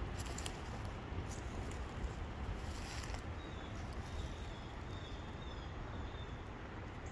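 Footsteps rustling through dry leaves and brush, with a few sharp twig snaps in the first few seconds. From about three seconds in, a bird repeats a short falling chirp over and over.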